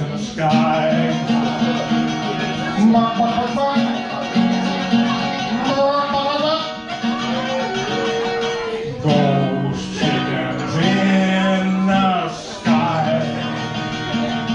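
A man singing solo to his own acoustic guitar accompaniment, a live country-style song.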